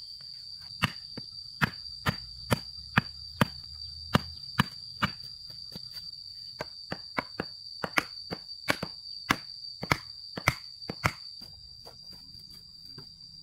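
Repeated sharp knocks, about two a second, stopping briefly about halfway, over the steady high buzz of an insect.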